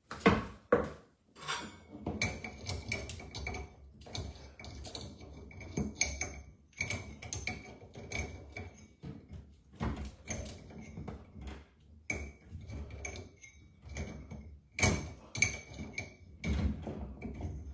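Irregular knocks, clicks and rattles of hands and tools working under a bathroom vanity to disconnect a sink, with a faint high squeak coming and going.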